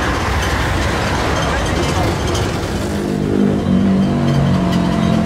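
Steady rumble and road noise of a motor vehicle on the move, with a humming tone joining in about three seconds in.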